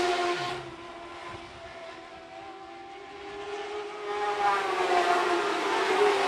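Lightning sprint cars' high-revving motorcycle engines running on a dirt oval: a car passes close and fades away within the first second, then the engine note grows louder again over the last couple of seconds as the cars come back around.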